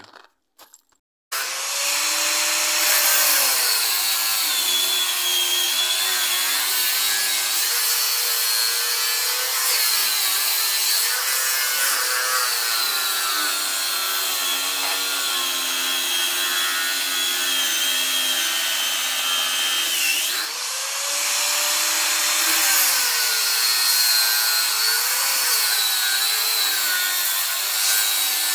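Angle grinder cutting through a bundle of steel cables. It starts about a second in, and its motor pitch sags under the load of the cut and recovers, dipping briefly around two-thirds of the way through before spinning back up.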